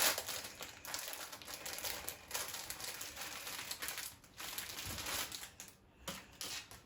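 Packaging crinkling and rustling as it is opened and handled by hand, in irregular bursts that die away near the end.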